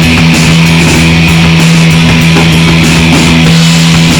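Rock band playing loud, distorted electric guitar with held, ringing chords as a soundcheck to set stage volume levels.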